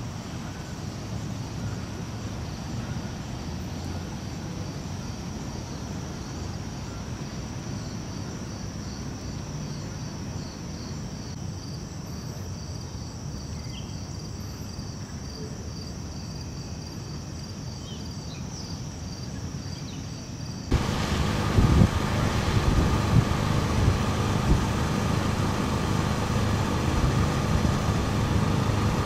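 Insects chirping in a steady, pulsing evening chorus over a low rumble. About two-thirds of the way in it cuts abruptly to a louder idling truck engine, a steady hum with occasional thumps.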